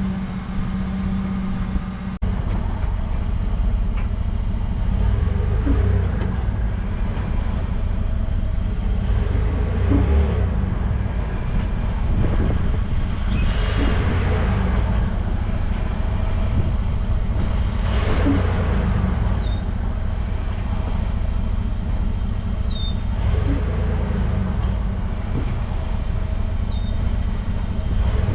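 2022 Ford F-150 running with a steady low rumble, with a few brief sounds standing out over it every few seconds.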